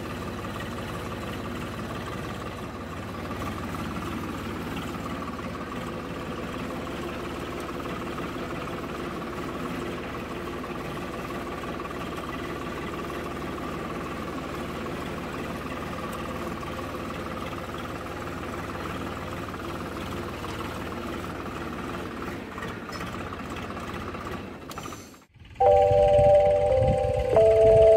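Swaraj tractor's diesel engine running steadily while pulling a seed drill across the field. About 25 seconds in, the engine sound cuts out and loud music with a bright, melodic tune takes over.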